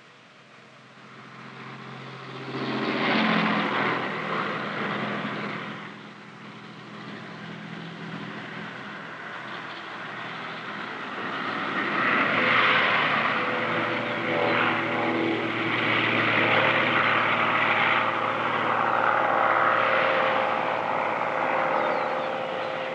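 Traffic passing on the highway, with a vehicle going by about three seconds in. Then the drone of a propeller airplane swells for about ten seconds as it flies overhead.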